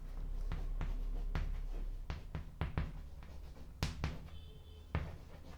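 A string of light, irregular knocks and taps, about a dozen, with a short high squeak about four and a half seconds in.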